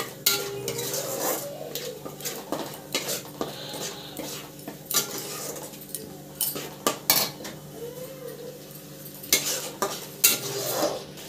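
Wooden spatula scraping and knocking irregularly against a kadai while stirring and frying a thick masala paste, with a light sizzle and a steady low hum underneath. This is the bhuna stage, where the masala is fried until the oil separates.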